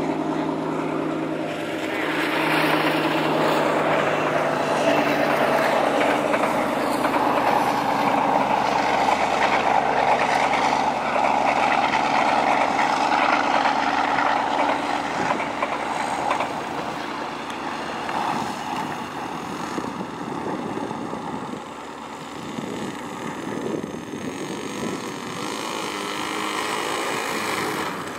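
RC model airplane's engine running at low throttle through the landing approach, touchdown and taxi on grass. It is steady throughout, louder for the first half and easing off in the second half.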